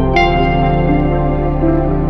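Background music: slow, ambient new-age music of sustained chords over a steady low drone, with a new chord coming in just after the start.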